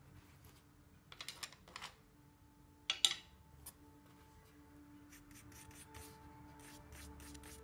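Paintbrush tapping and scraping against a paint palette while picking up and mixing paint: a cluster of light clicks about a second in, a sharper click near three seconds, then quicker faint ticks. Soft music with held tones fades in over the second half.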